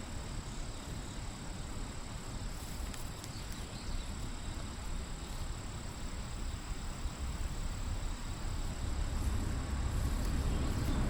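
Outdoor field ambience: a steady high-pitched insect trill over a low rumble that grows a little toward the end.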